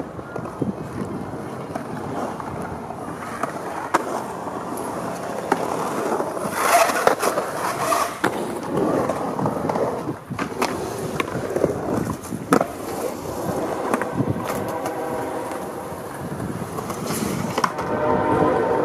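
Skateboard wheels rolling on concrete, with sharp clacks of the board's tail popping and landing every few seconds, and the scrape of the board sliding on a metal handrail.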